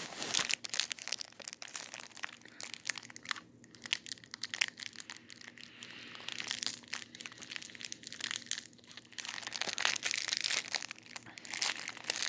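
Plastic candy wrapper crinkling and crackling in irregular clusters as a wrapped candy is handled and unwrapped.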